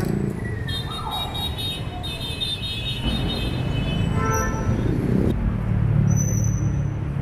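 City street traffic: vehicle engines running and passing, with a shrill high tone from about one to three seconds in.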